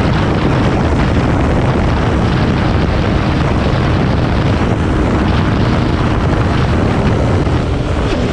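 Motorcycle ridden at about 150 km/h: loud, steady wind rush over the microphone, with the bike's engine running underneath.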